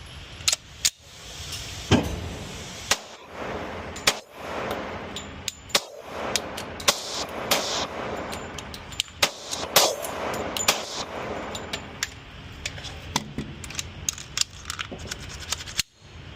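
Glock 20 10mm pistol with a forced-reset trigger, not yet tuned, firing shots and short strings of shots at irregular intervals, each a sharp crack with ringing after it.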